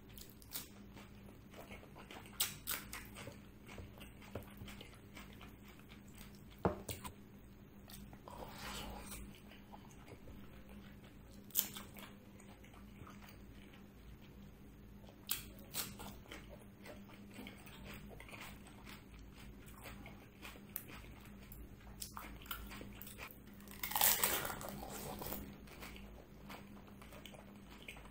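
Close-miked eating: chewing with irregular crunchy bites of cucumber and puffed panipuri shells, and one louder, longer crunch about 24 seconds in.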